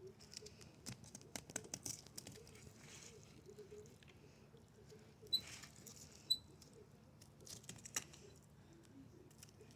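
Fillet knife sliding along a redfish's backbone, cutting the meat away: faint scraping and crackling with scattered sharp ticks.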